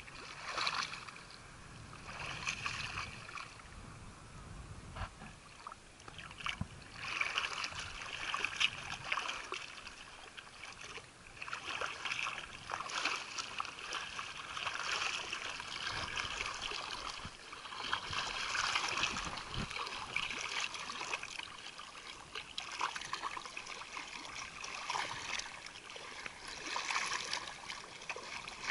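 Shallow sea water sloshing and splashing right at the camera held at its surface, in irregular surges that come and go every second or two.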